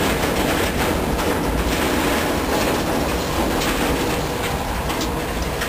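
Freight train cars rolling past on the rails: a steady rumble of steel wheels with irregular clicks as the wheels cross rail joints.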